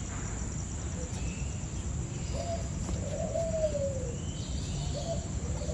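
A bird calling in long, drawn-out notes, each rising and then falling in pitch: one lasts about two seconds midway, and another begins near the end. Faint chirps from other birds sit over a steady low rumble.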